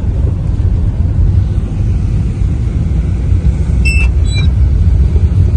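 Car interior rumble while riding as a passenger: a steady low road-and-engine drone. A couple of brief high-pitched chirps come about four seconds in.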